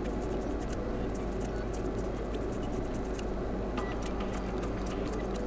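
Small cleaning brush scratching over an earbud's grill, faint scattered ticks over a steady low hum.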